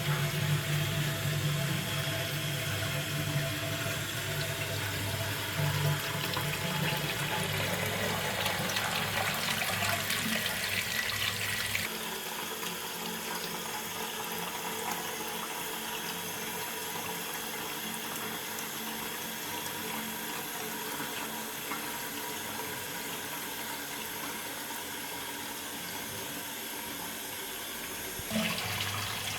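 Water running in a toilet tank: a rushing flow with a low rumble, which about twelve seconds in drops to a steadier, quieter hiss of the tank filling through its fill valve.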